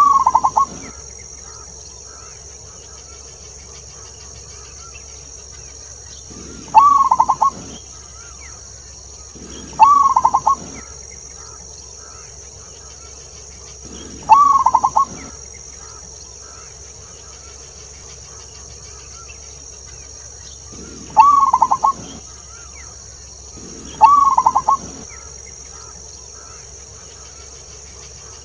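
Zebra dove (perkutut) singing: six cooing phrases about a second long, several seconds apart, each opening on a drawn-out high 'klauww' note that drops into a quick run of stuttering coos. A steady high hiss runs beneath.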